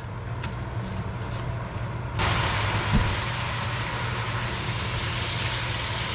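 Range-hood vent fan humming steadily; about two seconds in, chopped onion, carrot and celery go into hot oil in a Dutch oven and start sizzling steadily, with a single knock about a second later.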